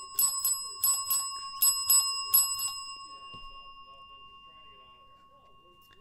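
A small metal bell rung rapidly in quick pairs of strikes, about eight in all, then left ringing, its clear tone slowly fading away.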